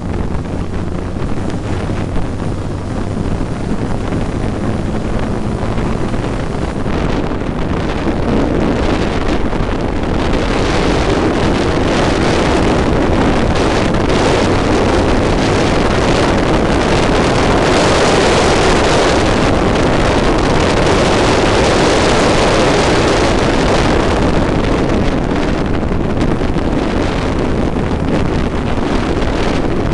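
Onboard sound of a Formula Monza 875 single-seater's small racing engine running hard at speed, mixed with wind buffeting on the microphone. The noise builds about a third of the way in and eases off near the end.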